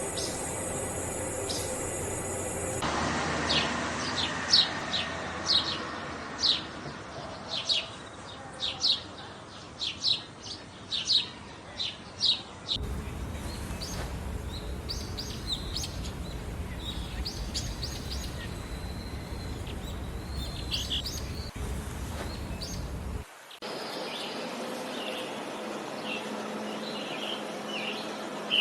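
Wild tropical forest birds calling over a steady background hiss: a run of sharp, short chirps repeated about once a second for several seconds, then scattered softer calls. The background changes abruptly a few times.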